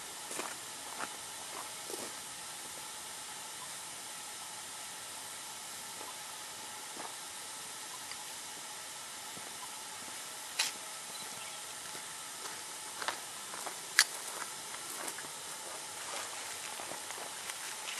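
Steady hiss of steam from a standing ride-on scale steam locomotive, with a few sharp clicks scattered through it, the loudest about fourteen seconds in.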